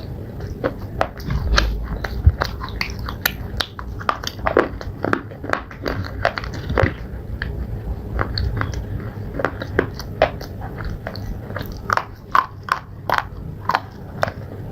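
Close-up biting and chewing of brittle slate pieces: a fast, irregular run of sharp cracks and crunches, several a second.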